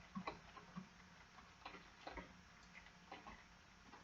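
Near silence broken by a few faint, short ticks at irregular intervals.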